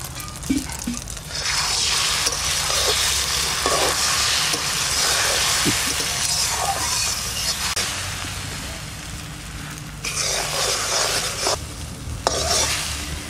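Beaten egg frying in hot oil in a metal kadai, sizzling steadily, while a metal spatula stirs and scrapes it. The sizzle starts about a second in and breaks off briefly near ten seconds before resuming.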